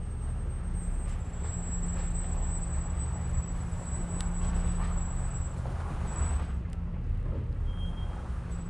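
A car's engine running at low speed as the car rolls slowly over an icy, snow-covered driveway: a steady low rumble and hum with rough tyre noise, and a faint high whine through much of it.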